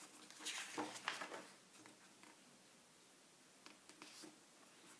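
A page of a large hardbound book being turned by hand: a soft paper rustle in the first second or so, then a few faint rustles and light taps.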